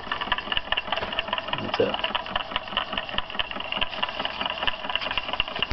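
Homemade diaphragm-type walking-beam Stirling engine running, its beam linkage and flywheel clicking in a fast, even rhythm, with the burner hissing steadily under it.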